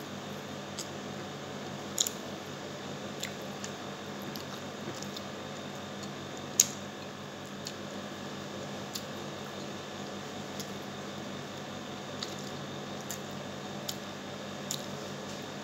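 Close-up eating sounds of someone eating rice and meat by hand: scattered small clicks and smacks of chewing and fingers on the plate, two louder ones about two seconds in and a little past six seconds, over a steady low room hum.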